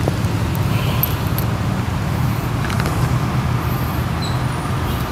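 Steady low engine hum from a running motor, even throughout, over a light background hiss with a few faint ticks.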